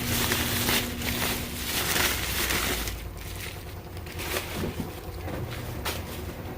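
Packaging crinkling and rustling as parts are unpacked by hand, busiest in the first three seconds, then quieter with a few light clicks.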